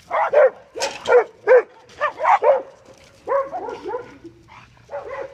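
Small black-and-tan dog barking again and again in short, yelping barks, in quick runs of two or three, while it is pulled away on its leash from a fence it was lunging at. This is the dog's problem barking, before any training.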